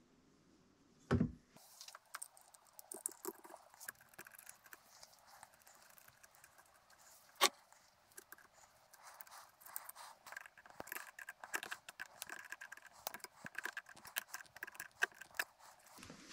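Small metallic clicks and rattles of crimped ring terminals and nuts being handled and fitted onto a motor's terminal studs, with a dull knock about a second in and a sharp click midway.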